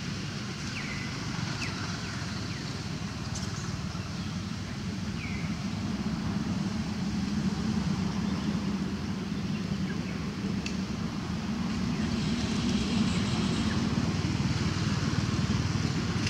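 Steady low rumble that grows louder in the second half, with a few short, high falling chirps in the first half.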